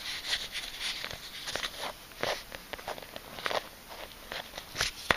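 Handling noise: irregular faint rustles and small clicks as fingers touch and rub the vinyl surface of an inflatable air bed around a glued rubber patch.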